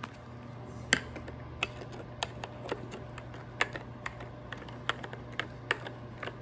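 Spoon clinking against the sides of a glass cup while stirring a drink: irregular sharp clinks, about one or two a second, the loudest about a second in.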